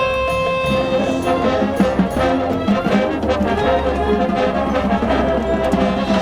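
High school marching band playing, brass carrying sustained notes over drums and front-ensemble percussion.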